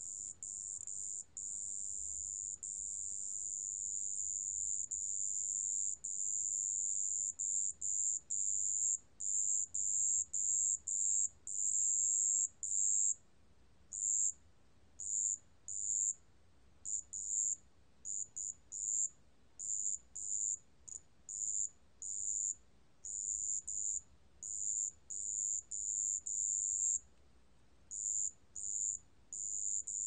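Wetland bell cricket (습지방울벌레) singing at 27 °C: a high, pure trill. It comes in long, nearly unbroken runs for the first dozen seconds, then breaks into many short bursts with brief gaps.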